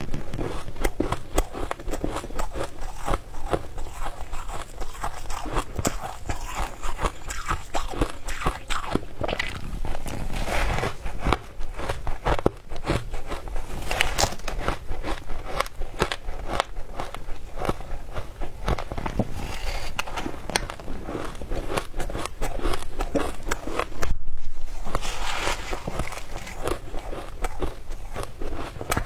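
A person biting and chewing frozen matcha ice, a steady run of close crunching and crackling with a brief break about 24 seconds in.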